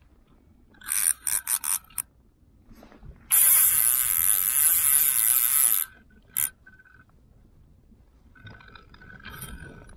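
Fly reel's ratchet drag buzzing as a hooked char pulls line off: a few short pulls about a second in, then one long run of about two and a half seconds, a short pull after six seconds and fainter ones near the end.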